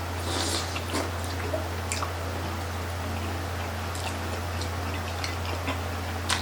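Close-up chewing and mouth sounds of people eating grilled chicken intestine (isaw) on barbecue sticks: scattered wet clicks and smacks, with a brief crunch about half a second in. A steady low hum runs underneath.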